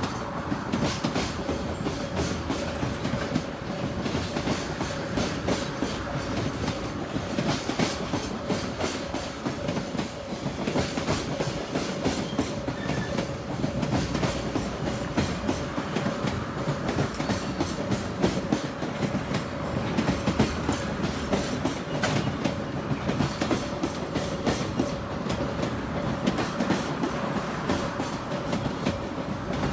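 Freight train of Koki container flatcars running on the line, its wheels clicking over the rail joints in a continuous clickety-clack over a steady rumble.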